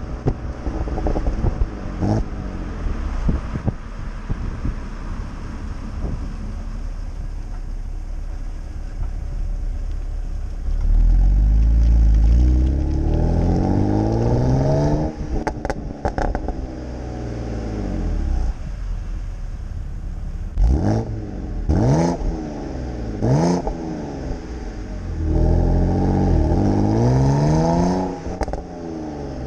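BMW E92 325i's N52B25 2.5-litre straight-six through a BMW Performance rear silencer. The engine runs low for the first ten seconds, then climbs steadily in revs and falls away with a burst of crackles and pops on lift-off. Later come three quick rev blips, each dropping off with pops, and one more rise and fall near the end.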